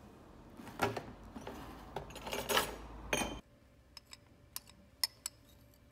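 Glassware handled on a table, with a run of clinks and knocks. After a sudden change in the sound about three and a half seconds in, a few light, sharp ticks follow as white powder is tipped from a glass jar onto a taped glass plate.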